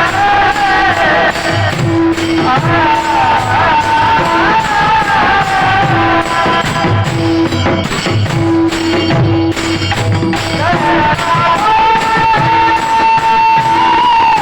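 A Marathi devotional kirtan tune sung by a male voice in long held notes that slide between pitches, over a steady drum rhythm with clicking, jingling percussion.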